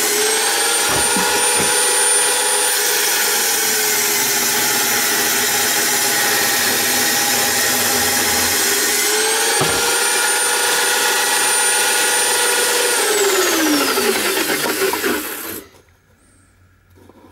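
Electric drill spinning a Bosch circular saw blade in a homemade table saw, running loud with a steady whine as the blade cuts a laminated chipboard board; the motor's pitch sags and recovers as the cut loads it. Near the end the whine falls steeply as the motor winds down, and the sound then cuts off abruptly.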